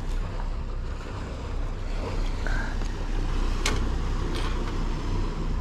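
Passing motor cruiser's engine running with a steady low hum, mixed with wind and water noise. Two sharp clicks a little over halfway through.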